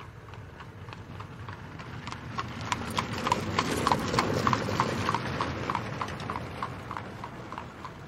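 Horse-drawn carriage passing by: the horse's hooves clip-clop at a steady trot of about three or four strikes a second over the low rumble of the carriage. The sound grows louder to a peak around the middle, then fades away.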